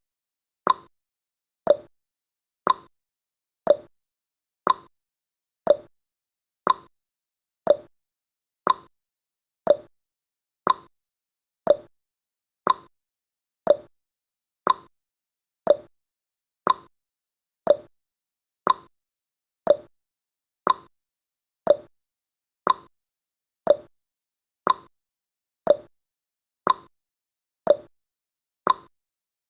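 Clock ticking sound effect, one tick a second, alternating a higher tick with a lower tock, marking off the countdown's seconds.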